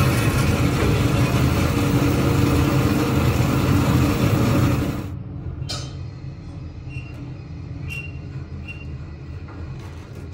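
Bandsaw, its guide bearings freshly cleaned and freed, running and cutting wood: a steady motor hum under the loud hiss of the blade in the cut. About five seconds in the cut ends and the sound drops to a quieter steady hum with a few light clicks.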